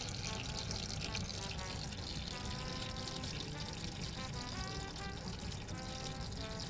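Automatic transmission fluid draining in many thin streams off the edges of a TorqueFlite A727 pan, broken loose from its gasket, and falling into a drain pan of fluid below: a steady trickle and splash.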